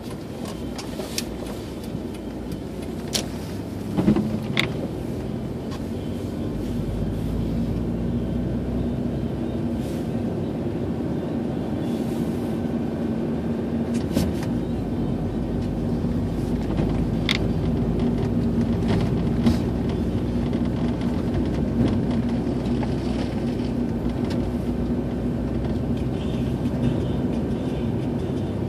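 A car driving on a snow-covered road, heard from inside the cabin: a steady engine hum and tyre rumble that grows louder about six seconds in, with scattered short clicks and knocks.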